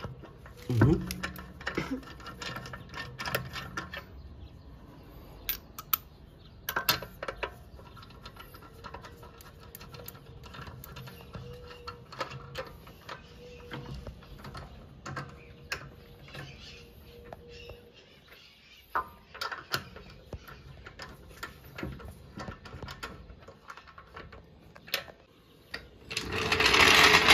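Light metallic clicks and ticks as lug nuts are run onto the wheel studs by hand. Near the end, a loud rushing noise lasts about two seconds.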